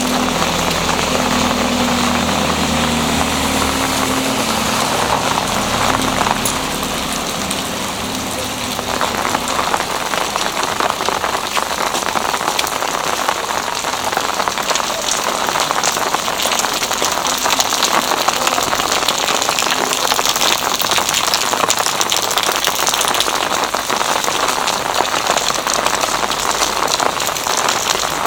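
Steady rain falling on the street. For about the first eight seconds a vehicle engine runs underneath it, then fades out.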